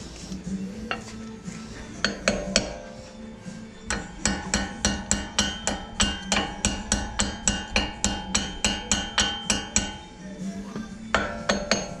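Steel claw hammer tapping on the metal of a Mercedes ML430 front brake caliper to seat the brake pad retaining pins, each blow ringing. A few single taps come first, then a quick even run of about three to four blows a second for some six seconds, then a few more near the end.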